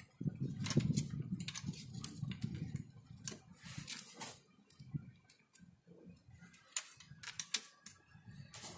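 Irregular metallic clicks and knocks of a wrench with a long pipe extension being worked on cylinder head bolts, tightened by hand and feel without a torque wrench. A low rumble runs under the clicks for the first few seconds.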